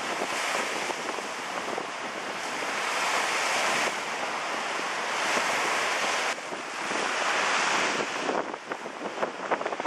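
Storm-force wind buffeting the microphone over rough lake waves breaking and splashing against a quay wall, a steady heavy rush. It changes abruptly about six seconds in, and near the end it turns choppy with many short crackling gusts.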